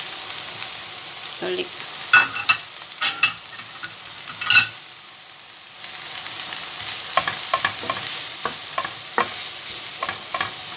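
Diced onion frying in a nonstick pan with a steady sizzle. A few sharp knocks come between about two and four and a half seconds in, then a wooden spoon stirring and scraping against the pan brings a run of light ticks near the end.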